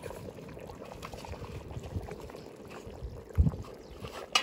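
Zirvak broth of onion, carrot and boiling water bubbling in a cast-iron kazan over a wood fire. There is a low thump about three and a half seconds in and a sharp knock near the end.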